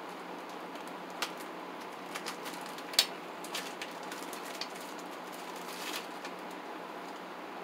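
Light plastic clicks and snaps from a weatherproof switch cover being handled, with one sharper snap about three seconds in, over a steady background hiss.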